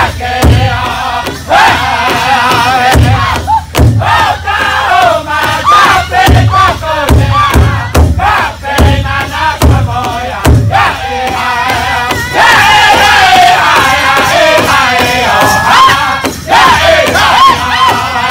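Northern-style powwow drum group: several men singing together in high voices while striking one large shared drum in unison with drumsticks, at a steady beat of roughly two strokes a second. In the second half the drumbeat drops back for a few seconds while the singing carries on, then the strokes come back near the end.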